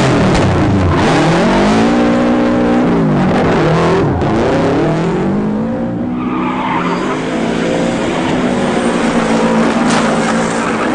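Subaru Impreza WRX STi rally car's turbocharged flat-four engine revving up and down in repeated swells as the car drifts. From about six seconds in, the tyres skid and squeal over a lower, steadier engine note.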